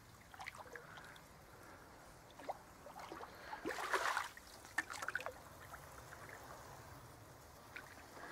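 Canoe paddle strokes in water: quiet dripping and trickling, with one louder swishing stroke about four seconds in and a few light clicks.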